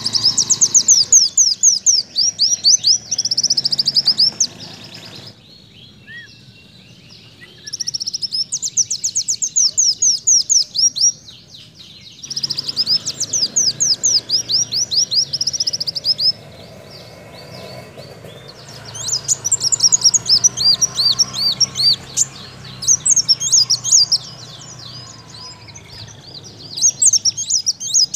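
Ruby-cheeked sunbird (kolibri daun) singing a canary-like song: about six bursts of fast, high, sweeping trill notes, each a few seconds long, with short pauses between them.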